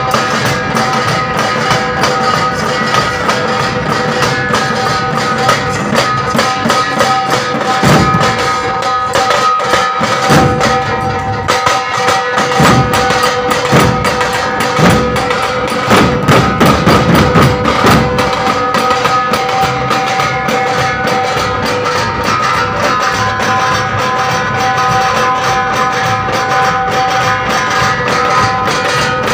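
Several large barrel drums (dhol) beaten rapidly with sticks in a dense, continuous drumming. A steady high drone runs underneath the whole time.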